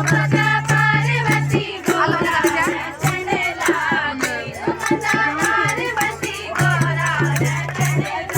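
Music: a song with a wavering singing voice over a steady low drone, with regular rattling percussion strikes.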